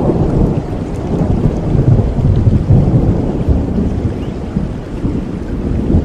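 Thunder rolling over steady rain. The rumble breaks in suddenly, is loudest about two to three seconds in, then eases off.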